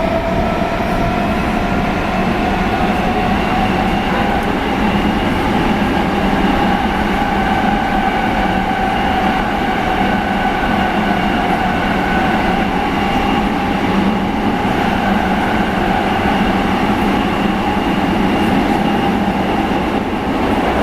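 Nagoya Municipal Subway 6000 series car running, heard from inside the car: the whine of its GTO-inverter traction motors climbs gently for the first several seconds, then holds steady over the constant rumble of wheels on rail.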